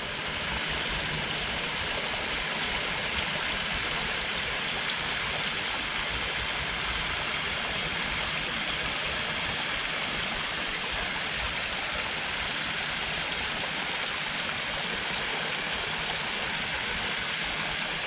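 Forest brook flowing with a steady, even rush of water. A few faint high bird chirps come about four seconds in and again around thirteen to fourteen seconds.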